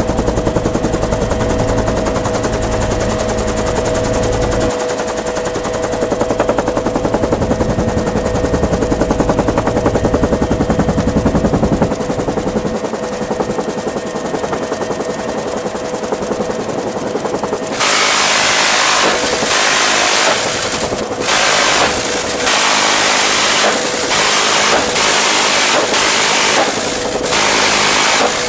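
Bell UH-1 Huey helicopter running in flight, a steady drone with a couple of held tones. About two-thirds of the way through, a door-mounted Dillon Aero M134 minigun firing 7.62x51mm rounds at 3000 a minute breaks in with a string of short bursts of a second or two each, much louder than the helicopter.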